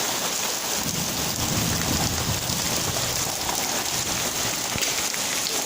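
Rain falling steadily, a constant hiss, with a low rumble swelling for a couple of seconds about a second in.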